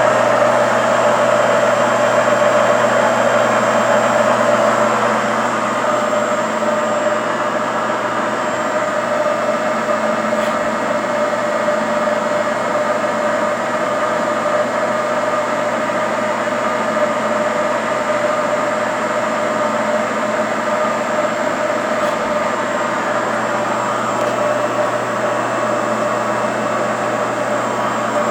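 Fryer ET-18 CNC lathe running, a steady mechanical whine with several held tones. It is a little louder for the first few seconds, then settles to an even level.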